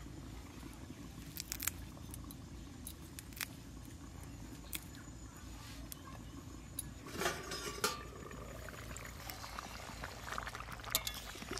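Sparse, faint clinks and taps of small clay bowls and kitchen utensils being handled, with a short run of clatter a little past the middle.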